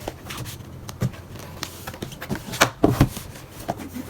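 Hands handling a manga box set and its packaging: scattered knocks, taps and rustles, loudest in a cluster about three seconds in.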